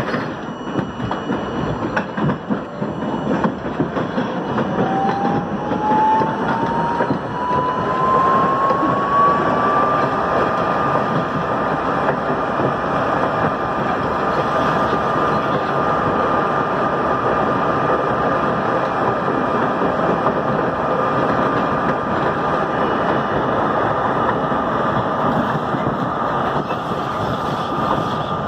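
R32 subway train running on the rails, heard from inside the front car: a steady rumble and clatter of wheels on track. A whine rises in pitch for several seconds as the train gathers speed, then holds at one pitch from about a third of the way in.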